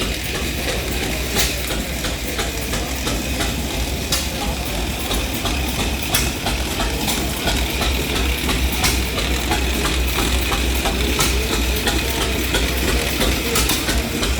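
Small engines running steadily, with a constant low hum and scattered sharp ticks and clicks throughout.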